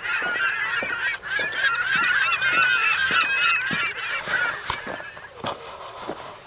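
A flock of geese honking, many short calls overlapping densely, thinning out after about five seconds.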